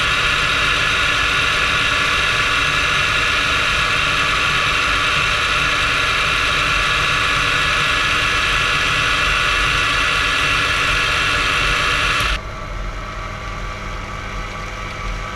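Proxxon PD 250/e mini lathe running steadily with a high whine as a threading tool is run along a freshly cut thread to clear its burrs. About three-quarters of the way through, the high whine cuts off suddenly, leaving a quieter, lower running hum.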